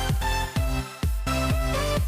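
Electronic dance music with a heavy bass and a steady beat.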